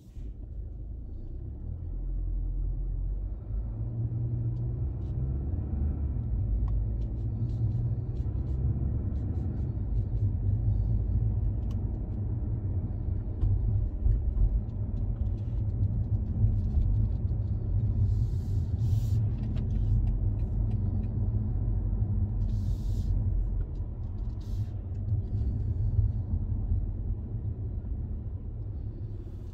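Car driving on the road: a low, steady rumble of engine and tyres that starts suddenly and builds over the first two seconds, then holds.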